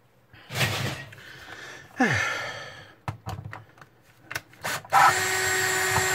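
Cordless screwdriver being picked up and set against a screw, with a few knocks and clicks of handling. About five seconds in, its motor starts and runs at a steady pitch.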